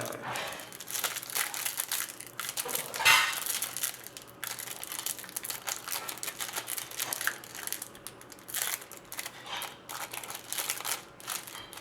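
Plastic card-pack wrapping being crinkled and crushed by hand as the pack is opened, a steady run of irregular crackles with a louder crunch about three seconds in.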